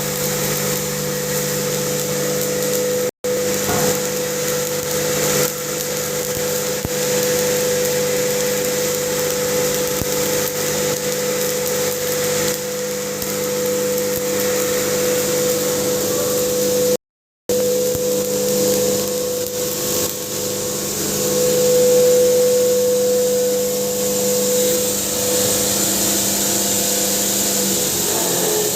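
Electric pulverizer (hammer mill) for grinding turmeric running steadily, a loud mechanical rush with a constant motor whine. The sound cuts out briefly twice, once about three seconds in and once near the middle.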